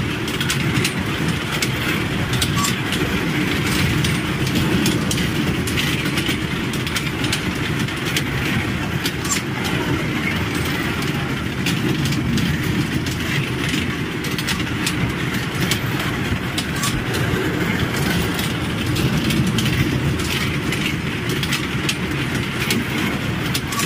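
Miniature kiddie-ride train running around its small loop of track: a steady rumble of wheels on the rails with scattered clicks.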